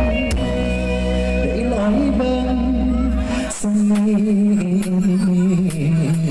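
Live band music with a male singer singing into a microphone; the deep bass drops away about halfway through.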